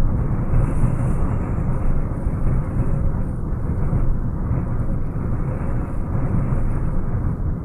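Strong hurricane wind blowing without a break: a deep, steady rush that swells and eases a little from moment to moment.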